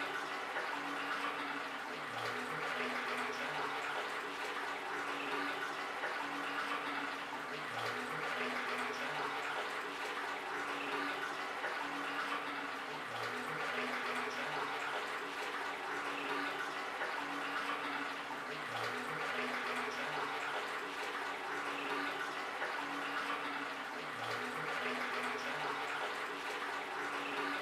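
Tap water running steadily into a basin, an even rushing splash. Underneath it a faint low two-note pulse repeats about every five and a half seconds.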